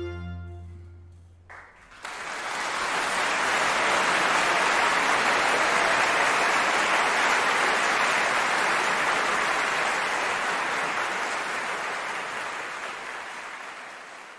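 The last held note of an operatic aria with orchestra dies away. Then an opera audience applauds, swelling within a couple of seconds and slowly fading.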